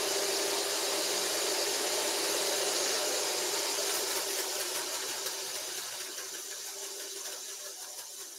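Cuisinart electric hand mixer running steadily, its beaters whipping eggs, an egg yolk and sugar in a glass bowl; a steady whir with a high hiss, getting gradually quieter over the second half.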